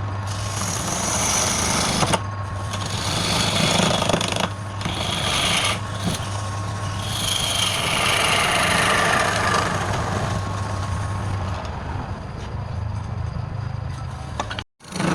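Wood lathe running with a steady motor hum while a hand-held turning tool cuts the spinning wood. The scraping cuts come and go every second or two, and a whine falls in pitch for a few seconds midway. The sound drops out briefly near the end.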